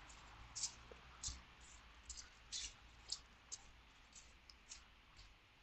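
Faint footsteps of a person walking: short crisp steps, about two a second.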